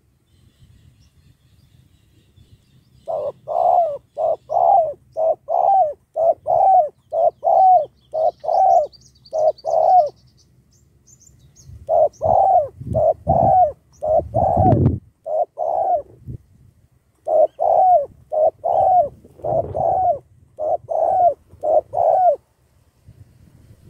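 Spotted dove cooing: three long runs of rapid repeated coos, about two notes a second, with short pauses between them. A brief low thump midway.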